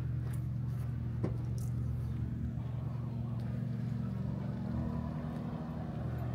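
A motor vehicle's engine running steadily as a low, even hum, with a few faint ticks over it.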